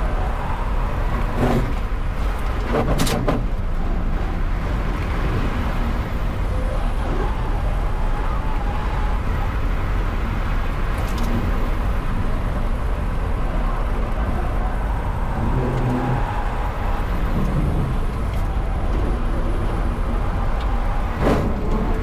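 Onboard sound of an electric car lapping a track at speed: a steady rumble of tyre and road noise with a faint whine. A few sharp knocks come through, about one and a half and three seconds in and again near the end.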